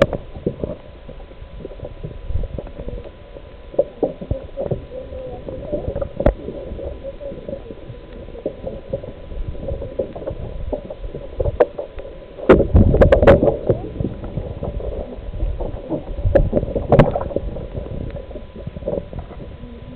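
Muffled water sloshing and gurgling close to the microphone, with scattered knocks and a louder stretch of splashing a little past the middle.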